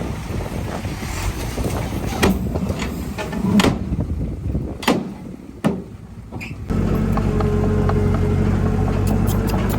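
Heavy diesel earthmoving machinery at work: a rumble with several sharp metallic clanks through the first six seconds, then a louder, steady engine drone that comes in abruptly about two-thirds of the way through.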